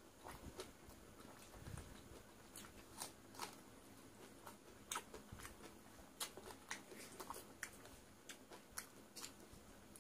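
A person chewing a mouthful of watered rice (panta bhat) eaten by hand: faint, irregular soft clicks and crunches, a few every second.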